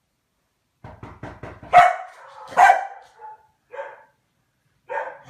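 A dog barking. A few quick short yips lead into several sharp barks, the loudest about two seconds in.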